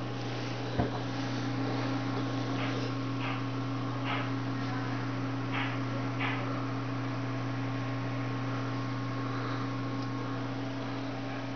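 Steady electrical hum of small aquarium water pumps running, with a soft click about a second in and a few faint brief ticks.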